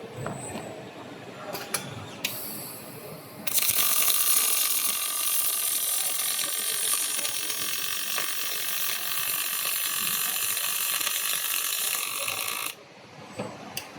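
Robotic arc welding on a fan impeller. A few clicks come first, then about three and a half seconds in the arc strikes and runs as a loud, steady hiss for about nine seconds before cutting off suddenly near the end.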